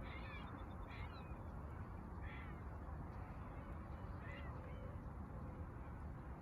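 A few short, faint bird calls about a second or two apart, over a steady low outdoor rumble.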